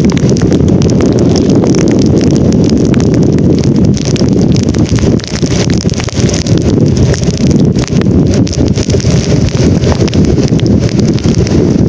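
Storm wind buffeting the microphone on a moving vehicle, a loud, dense, steady rumble with road and tyre noise beneath it on a rain-soaked road.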